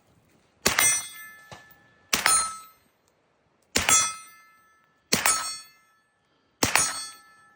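Century Arms AP-5 9mm (MP5 clone) firing through an Energetic Armament Peak 30 suppressor. Five single suppressed shots come about a second and a half apart, each with a brief metallic ring after it.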